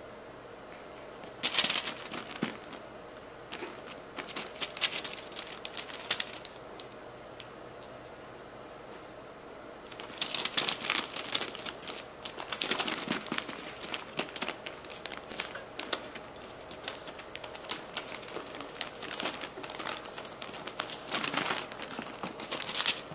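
Chihuahua puppies scrambling and wrestling on a padded fabric dog bed: rustling and scratching of the bedding in irregular bursts, with a quieter spell of a few seconds in the middle before the scuffling picks up again and carries on almost without pause.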